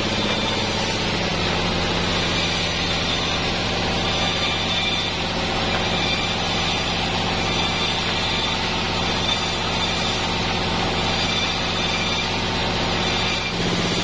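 Sawmill band saw running steadily with a constant, machine-like hum while boards of ylang (kenanga) wood are cut; the sound shifts slightly near the end.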